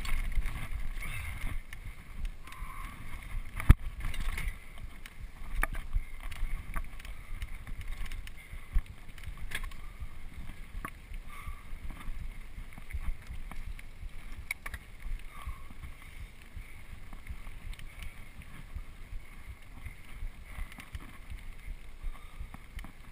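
Mountain bike riding fast down a dirt singletrack: wind buffeting the microphone and a low rumble of tyres on the trail, with scattered clicks and rattles from the bike over bumps, the sharpest about four seconds in.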